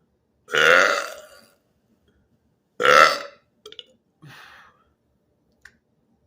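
A man burping loudly twice, the first burp about a second long and the second shorter, followed by a few much fainter, brief sounds.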